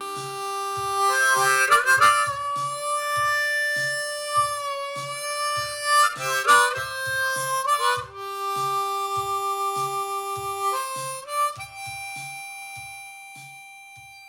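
Harmonica playing a slow instrumental line of long held notes with some bends between them, over a soft low beat about twice a second, fading out near the end.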